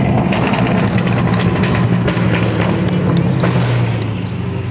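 Mercedes CLS 550's twin-turbo V8 with straight-piped exhaust, heard from inside the cabin, running loud and steady at an even engine speed, easing off slightly near the end.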